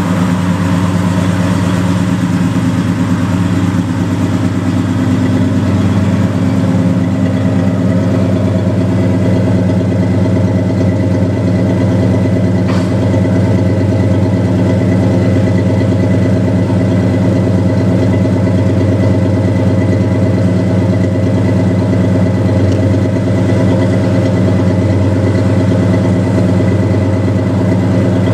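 1970 Dodge D100 pickup's V8 engine idling steadily through its exhaust.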